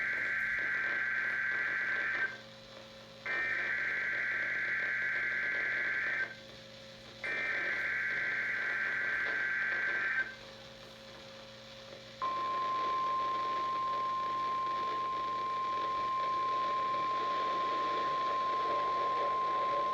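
NOAA Weather Radio alert signal: three bursts of warbling SAME digital data, each about three seconds long with a second's gap between them, then, about twelve seconds in, the steady 1050 Hz warning alarm tone begins and holds. This is a test of the weather radio warning alarm.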